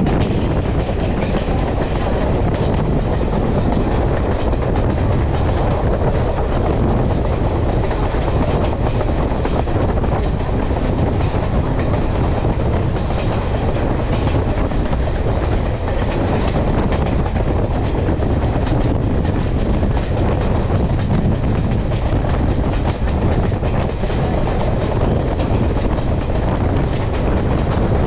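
Passenger train running along the track, heard from aboard: a steady rumble of steel wheels on rail, with faint scattered clicks of the wheels passing over the track.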